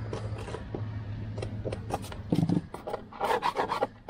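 A hand tool scraping dirt and rust off a car's bare steel floor pan in quick, irregular strokes that grow busier and louder near the end, over a low steady hum.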